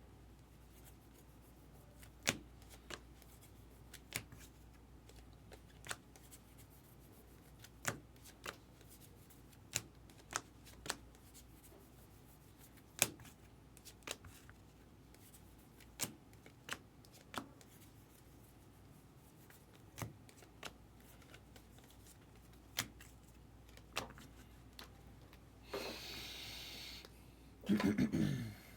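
Baseball trading cards being flipped through one at a time, each card snapping down with a sharp click at irregular intervals of about a second. Near the end comes a longer rustle, then a louder brushing sound of cards or packaging being handled.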